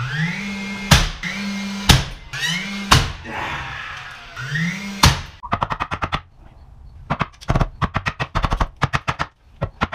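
Cordless flywheel nailer firing four nails. Before each shot its motor whines up in pitch, then each nail drives with a sharp bang, about a second apart with a longer gap before the last. After that comes a quick, irregular string of sharp cracks and clicks as wood is pried with a flat bar.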